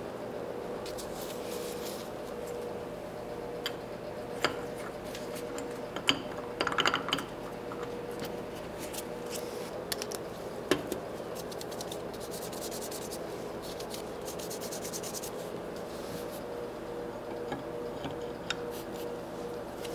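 Small clicks, taps and scrapes of metal drill press parts and hand tools being handled and fitted, over a steady hum. A cluster of louder clicks comes about six to seven seconds in.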